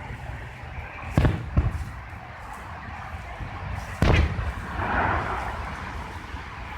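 Aerial fireworks bursting: a boom about a second in, a second boom just after it, and a louder boom about four seconds in, followed by a brief rush of noise.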